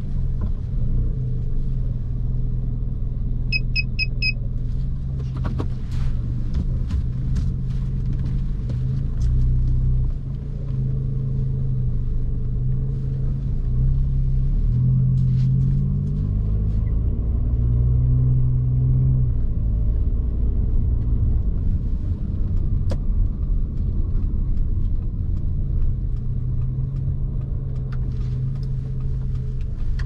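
Car engine and road noise heard from inside the cabin: a steady low rumble whose pitch rises and falls as the car speeds up and slows. About four seconds in, four short high beeps sound in quick succession.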